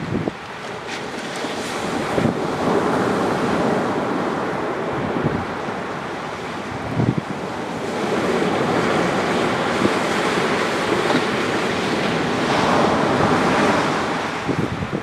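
Waves breaking and washing up a sandy beach in a somewhat rough sea, swelling and fading in long surges, with wind buffeting the microphone.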